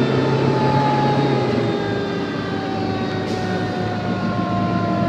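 Fire truck's mechanical siren winding down, its pitch falling slowly and steadily, over the truck's engine and road noise heard from inside the cab.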